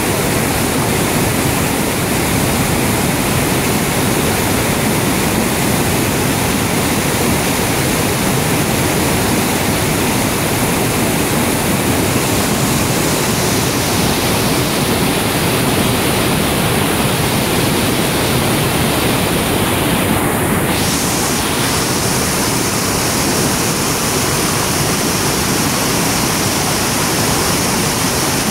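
Floodwater pouring over a concrete dam spillway in a steady, loud rush of churning white water; the spillway is running very high after heavy rain.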